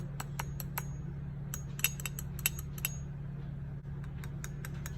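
A spoon tapping and clinking on a dish of crème brûlée: light, sharp clicks in three uneven clusters, with a steady low hum underneath.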